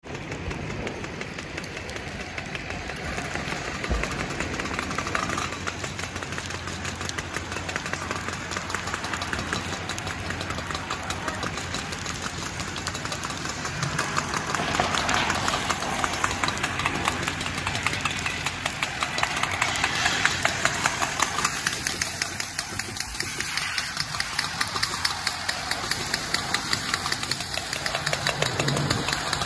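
Fire engine's diesel engine running steadily, with the crackling of a burning car. A louder rushing hiss joins about halfway through.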